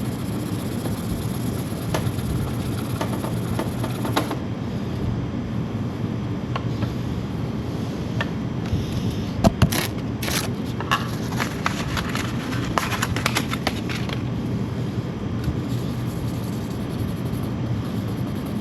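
Steady low mechanical hum, with scattered sharp clicks, two loud clicks about halfway through, and a stretch of rough scraping or rubbing soon after.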